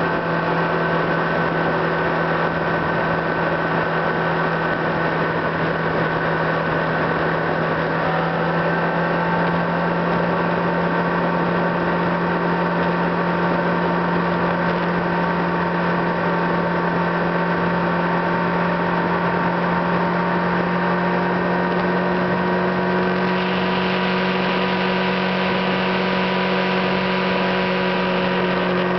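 Car being driven along a town road: a steady low engine hum with higher tones that drift slowly in pitch as the speed changes. More hiss joins in about three-quarters of the way through.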